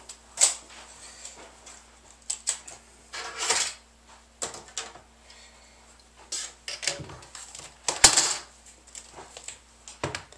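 Irregular clicks, taps and rustles of laptop screen parts being handled by hand, with a sharper knock about eight seconds in.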